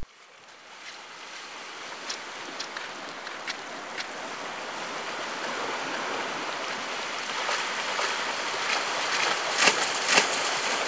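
Steady rushing noise, like running water. It fades in over the first couple of seconds and slowly grows louder, with a few faint clicks scattered through it.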